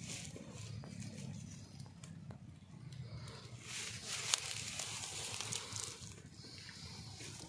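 Dry grass rustling and crackling as hands part and push through it, loudest about halfway through, with one sharp snap; a low steady rumble underneath.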